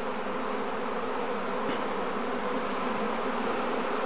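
Steady, dense buzzing of a very large honeybee swarm in flight overhead, the wingbeats of thousands of bees blending into one unbroken drone.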